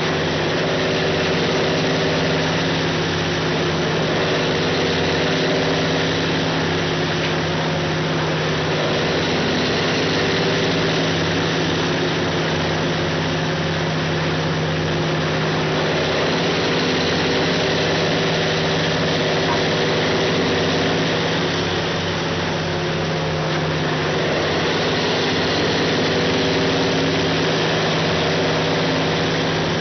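Diamond Z DZT8000TKT track-mounted tub grinder running at a steady pitch, its diesel engine droning continuously while the tub turns and grinds the wood waste loaded into it.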